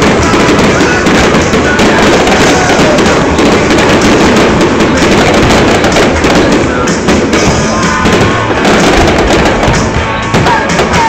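Fireworks display: shells and fountains bursting and crackling in a continuous dense barrage, loud enough to overload a phone microphone.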